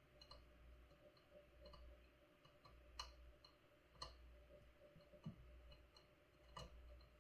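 Faint, scattered light clicks of a small tool prodding soldered surface-mount components on a circuit board, testing whether the joints are tight.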